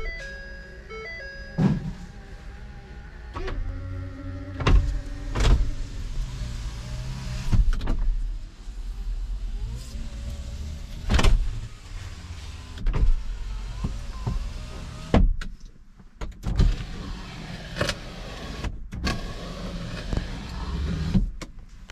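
Power window motors in a 2014 Ford F-250 Super Duty's cab humming in several short runs, with scattered knocks and clunks.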